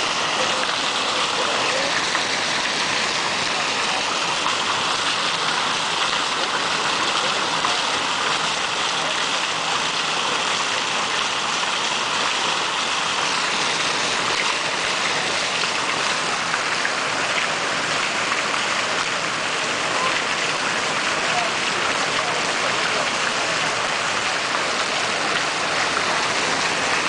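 Water from the Tyler Davidson Fountain's bronze jets and spouts falling and splashing steadily into its basin.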